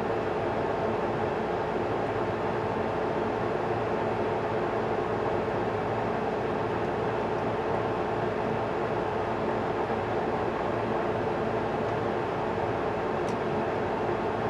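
A steady, unchanging droning noise, with a faint click near the end.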